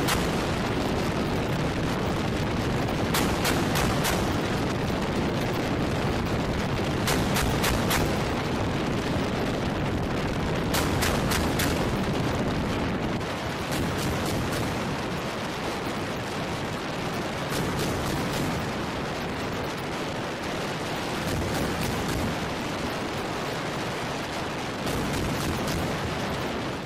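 Naval deck gun firing short bursts of several rapid rounds, a burst every few seconds, over a steady rushing background noise.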